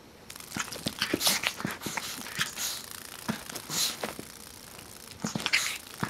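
Irregular scratching and rustling as a miniature pinscher paws and snaps at a cicada on carpet, with many scattered clicks and short rustling bursts.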